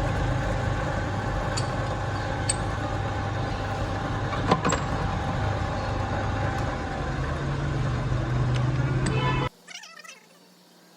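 A workshop machine running steadily with a low hum and scattered sharp ticks, cutting off suddenly near the end.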